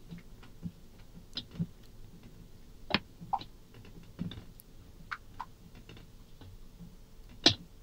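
Silicone spatula stirring thick coffee ganache in a stainless steel bowl: irregular soft clicks and taps of the spatula on the bowl and the sticky mix, the sharpest one near the end.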